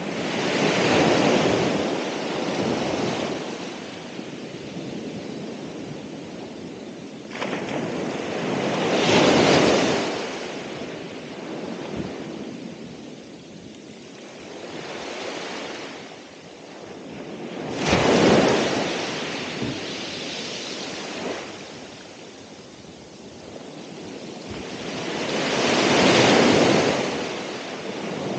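Ocean waves breaking on the shore, four big surges about eight seconds apart, each swelling and then washing back down to a quieter hiss of foam. The wave at about 18 seconds in breaks the most abruptly.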